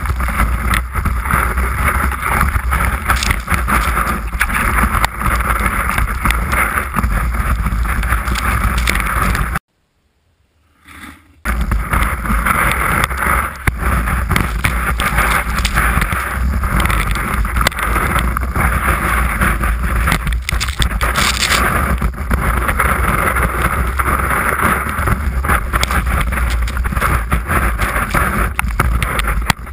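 Wind rushing over a ski-boot-mounted action camera's microphone during a fast downhill run, with the skis scraping and hissing on the snow. The sound cuts out completely for about two seconds near the middle.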